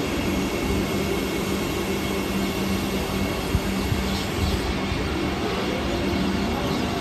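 Trains rolling through a station: a steady rumble of wheels on track with a steady electric hum. There is one sharp click about three and a half seconds in.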